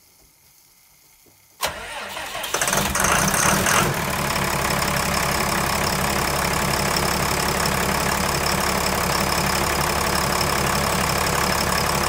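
Cummins 5.9 ISB inline-six diesel starting: the starter cranks it for about a second, it catches and revs up, then settles into a steady idle. It starts a little rough, which the owner puts down to air in the injectors.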